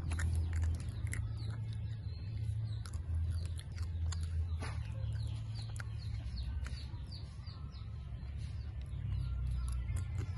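Close-miked chewing of dried banana with small mouth clicks, while small birds chirp in many quick falling notes over a steady low hum.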